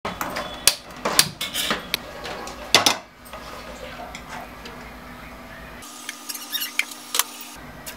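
Clicks and metal clatter at a gas stove: a spark lighter at the burner and an aluminium pressure cooker being handled. Several sharp clanks come in the first three seconds, then a steady low hiss, and near the end a few light clinks as oil is poured into the cooker.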